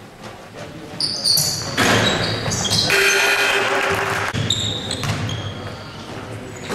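Basketball game sounds in a reverberant school gym: sneakers squeaking on the hardwood court and a ball bouncing, with a loud burst of crowd cheering and shouting that lasts a couple of seconds about two seconds in.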